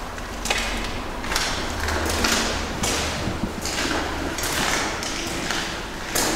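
Footsteps scuffing and crunching on a dirt floor strewn with debris, a scrape roughly every half-second to second at walking pace.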